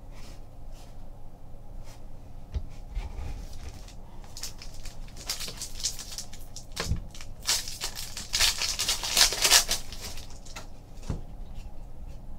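A trading-card pack's foil wrapper being torn open and crinkled by hand: a run of crackling rustles that builds through the middle and is loudest shortly before the end, with a few dull bumps from handling.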